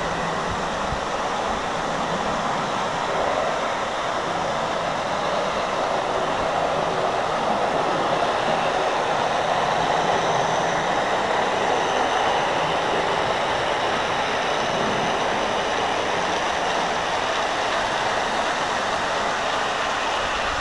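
Darstaed O gauge tinplate Brighton Belle model train running on its track, a steady rumble of wheels on tinplate rails that grows a little louder toward the middle as it passes close.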